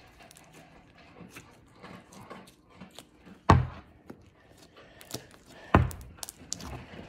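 Small clicks and crackles of slime being squished and handled in a plastic tub, with two dull thumps of the tub against a wooden table, about three and a half and six seconds in.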